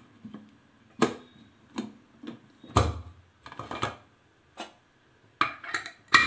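Irregular light clicks and knocks of metal handling on an aluminium pressure cooker, about eight in six seconds. The last and loudest is a metal click as the whistle weight is fitted onto the lid's vent pipe.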